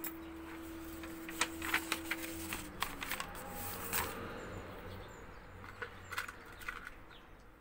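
A large sheet of paper rustling and crackling as it is picked up, laid down and smoothed flat by hand on newspaper. The crinkles are densest in the first four seconds and thin out after that.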